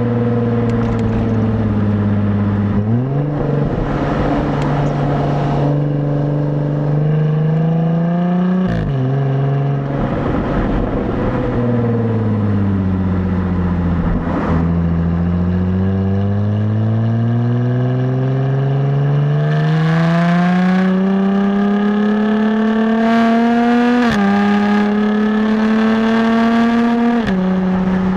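Stock exhaust of a 2017 Jaguar F-Type, heard from the rear plate while driving. Engine speed climbs and falls through the gears, with sudden pitch jumps about three seconds in and again near nine seconds. Near the end it pulls up steadily, then drops sharply twice at upshifts.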